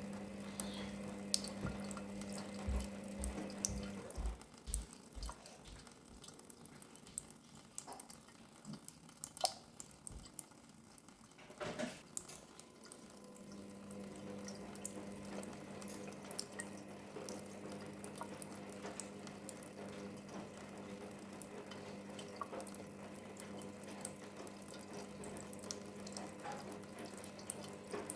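A cat lapping water in many small quick licks, with running water trickling throughout. A steady low hum stops about four seconds in and returns around thirteen seconds.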